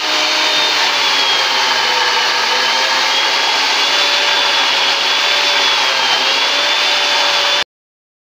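Masonry wall saw running and cutting through brickwork, a loud steady grinding with a high motor whine that sags and recovers slightly under load. It cuts off suddenly near the end.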